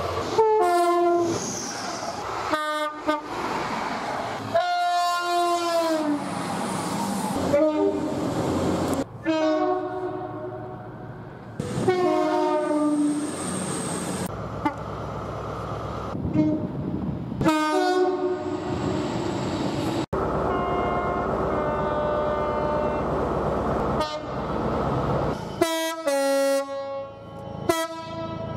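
A run of short clips of train horns sounding, cut abruptly one into the next: two-tone high-low blasts and single held notes, some falling in pitch as the train passes, with train running noise beneath.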